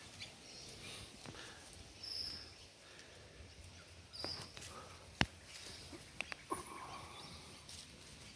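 Seven-week-old Doberman puppies play-fighting, with faint, scattered high yips and small growls. A single sharp click about five seconds in is the loudest sound.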